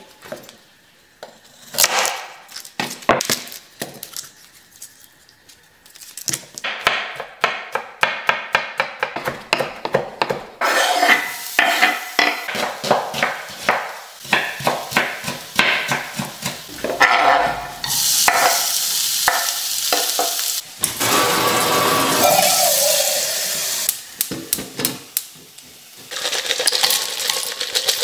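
Chef's knife chopping garlic on a wooden cutting board in quick runs of knocks, with oil sizzling in a frying pan. About eighteen seconds in, a steady sizzle of food frying takes over, and near the end there are metal clinks as an aluminium kettle is handled on the gas hob.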